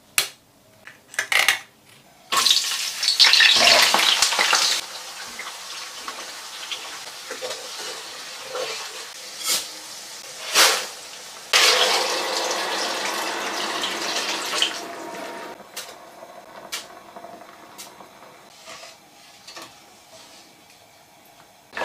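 Kitchen cooking sounds: kitchen scissors snipping into king crab leg shells, then a clay pot of hot oil sizzling as Sichuan peppercorns and dried chilies go in, with two long stretches of loud hissing and small clinks and taps of a spoon against the pot.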